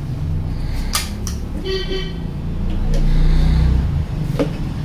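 A few sharp plastic clicks as a nozzle and extension tube are snapped onto a cordless blower, over a steady low rumble that swells about three seconds in. A short vehicle-horn toot sounds about two seconds in.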